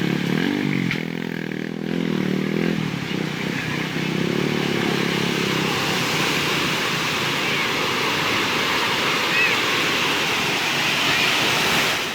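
A motorcycle engine running and revving for the first few seconds, over a steady rush of floodwater that carries on and grows slightly louder toward the end, with faint voices.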